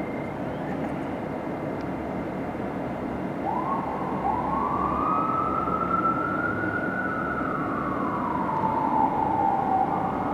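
Fire truck siren wailing, starting about a third of the way in, slowly rising, holding, dipping and rising again, over a steady wash of city traffic noise.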